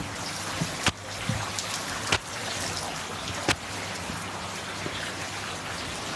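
A steady, even hiss of background noise, with a couple of soft low footstep thumps in the first second and a half and three sharp clicks.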